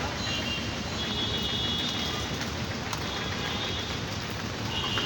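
Steady hiss of rain on a waterlogged street, mixed with street noise. From about a second in, a thin high tone sounds for about two seconds.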